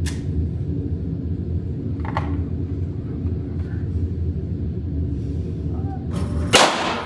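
Pistol shots in an indoor range: two sharp reports about two seconds apart, then a much louder one near the end, over a steady low hum.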